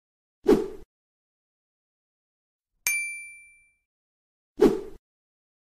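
Sound effects of an animated subscribe button: a loud click about half a second in, a bright bell ding near three seconds that rings and fades out, and a second click near the end.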